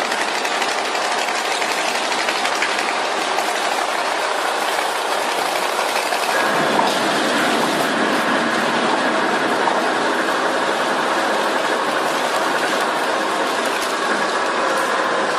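Industrial crusher machine running and grinding material, a loud steady mechanical noise that changes character about six seconds in.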